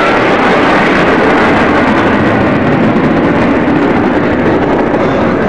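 Display jets passing low overhead: a loud, steady jet roar that deepens as the aircraft move away.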